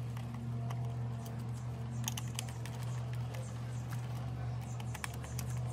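Small screwdriver turning screws out of a singing fish's plastic gearbox housing: scattered light clicks and ticks, over a steady low hum.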